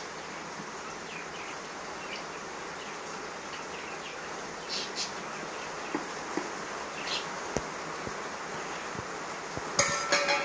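A few light taps and knocks over a steady hiss, then near the end a steel plate clatters against the cement floor and rings briefly.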